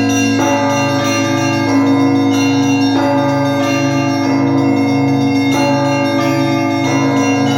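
Russian Orthodox church bells rung by hand from the belfry: the deep tones of the large bells hum on continuously, while fresh strokes fall in a steady repeating pattern, a heavier one about every second and a quarter.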